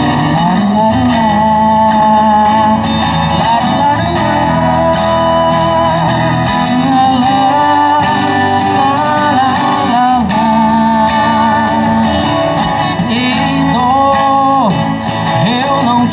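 A song with guitar accompaniment, its melody line bending and wavering in pitch over a steady backing.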